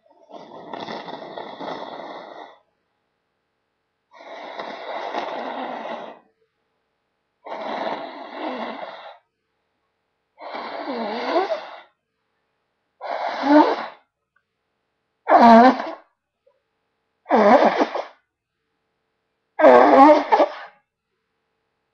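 A person blowing a runny nose, eight blows in a row; the first ones are longer, airy blows, the later ones shorter and louder with a wet, honking pitch.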